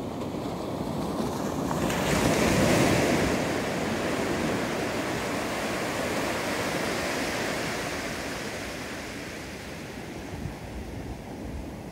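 Small ocean waves breaking and washing up onto a sandy beach. One wave breaks with a rising hiss about two seconds in, and the wash slowly dies away over the following seconds.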